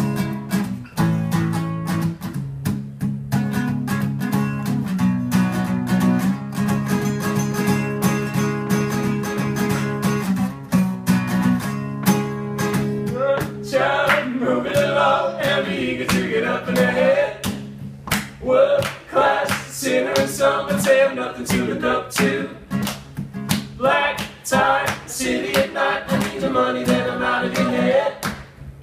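Acoustic guitar strummed in steady chords, with singing coming in over it about halfway through.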